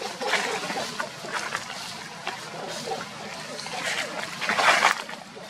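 Long-tailed macaques scuffling and running over dry leaf litter, a steady rustling crackle with a louder scratchy burst about four and a half seconds in.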